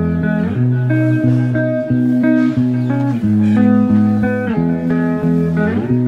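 Background instrumental music led by guitar.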